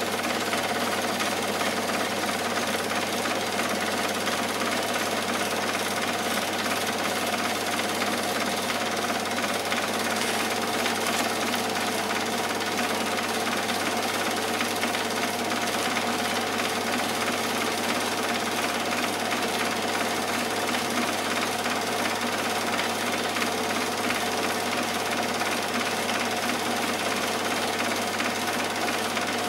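Cine film projector running: a steady, rapid mechanical clatter from the film transport, with a low motor hum underneath.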